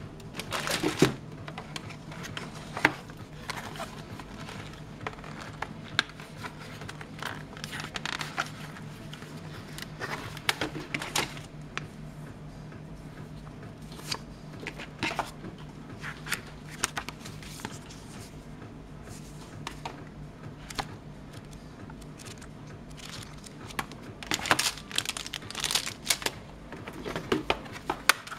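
Hands handling a motherboard's cardboard box, paper manual and plastic-bagged I/O shield: paper and cardboard rustling and plastic crinkling in scattered bursts, with light taps and clicks. A steady low hum runs underneath.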